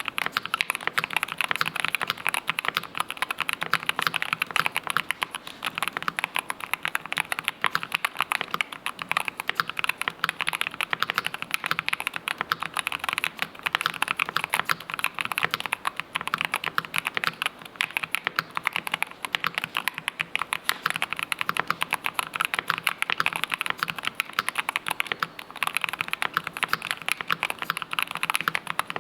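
Keychron K2 HE all-wood keyboard with magnetic switches being typed on fast and without pause: a dense, steady stream of keystrokes.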